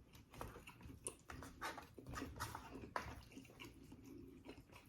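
Faint chewing and mouth sounds of a person eating: soft, irregular wet smacks and clicks.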